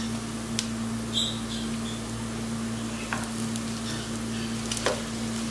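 Chopped onion, green chilli and curry leaves frying gently in oil in a pot: a soft, steady sizzle over a constant low hum, with a few light clicks.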